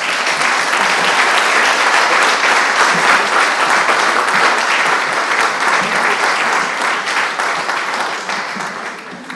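Audience applauding with dense hand clapping that fades gradually near the end.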